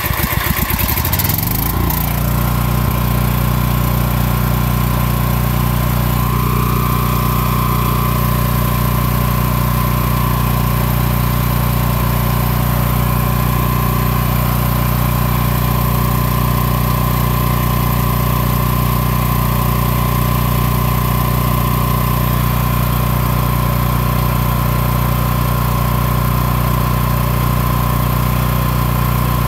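Champion portable generator's engine, just started, spinning up to speed over the first couple of seconds and then running steadily at its governed speed.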